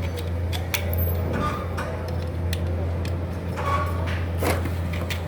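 Sheet-metal duct work: scattered light metallic clicks and taps, as of tin snips and sheet metal being handled, over a steady low hum.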